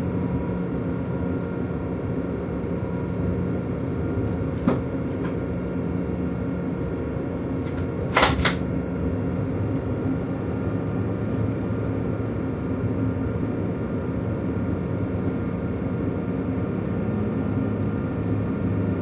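Steady running noise inside the cab of an ÖBB class 1116 Taurus electric locomotive under way: an even rumble with several constant hums and whines from the drive. A short click about five seconds in, and a brief, louder sharp noise about eight seconds in.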